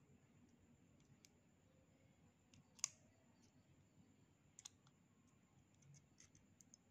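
Near silence broken by a few faint small clicks and ticks of a small hand tool working the battery contact pins of an opened smartwatch, the sharpest click nearly three seconds in.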